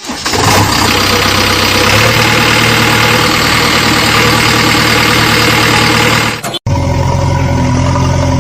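Loud, rough engine sound running, broken by a sudden cut about six and a half seconds in, then a deeper, steadier engine note.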